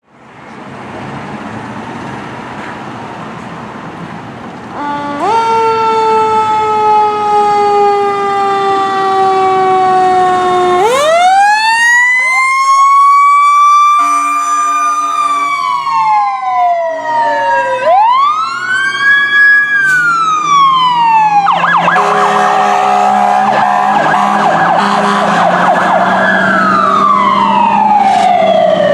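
Fire engine and rescue truck responding with sirens and air horns. Traffic noise comes first. About five seconds in, a long blast starts and slides slowly down in pitch. Then sirens wind up and wail up and down, and for the last several seconds air horn blasts and overlapping sirens sound together.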